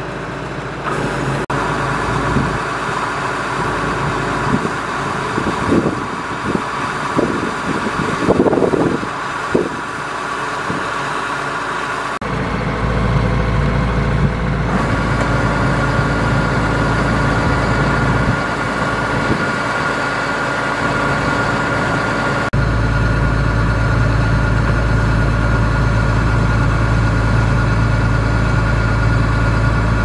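Kubota DC-105X rice combine harvester running steadily while its unloading auger feeds grain into sacks, with a few irregular louder bursts in the first half. The engine sound shifts abruptly twice, heavier and lower in the last third.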